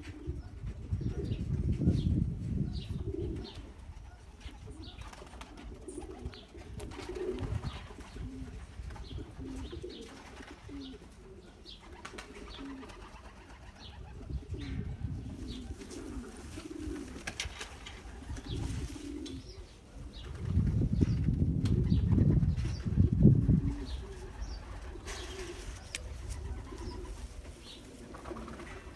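Racing pigeons cooing over and over in low repeated calls. Low rumbling on the microphone swells about a second in and again about two-thirds of the way through.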